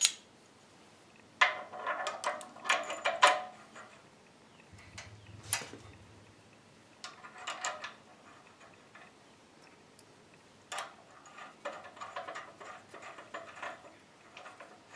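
Light metallic clicks and clinks in several short bursts as thrust bearings and a clamping collar are fitted on a lathe cross-slide lead screw and its crank handle is worked.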